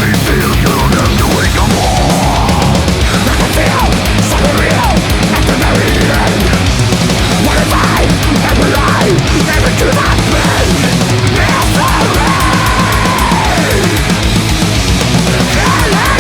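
Loud heavy-metal background music: distorted guitars over a fast, steady drum beat.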